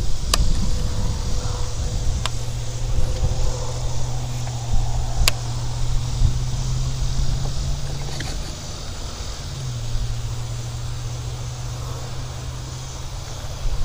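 A motor's steady low hum, dropping slightly in pitch about two thirds of the way through, with a few sharp clicks scattered across it.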